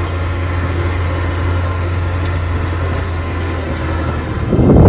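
Car engine running with tyre and road noise, heard from inside the cabin as a steady low hum while driving along a dirt track.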